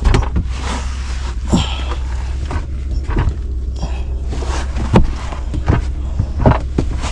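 Scattered knocks, thumps and scuffs of a person shifting and crawling about in a cramped attic, about half a dozen irregular bumps, over a steady low hum.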